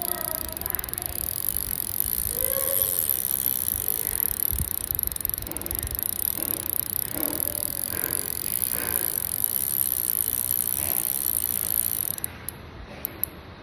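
Daiwa Exceler spinning fishing reel making its rapid, steady ratcheting click. The clicking stops abruptly about twelve seconds in, followed by a few single clicks.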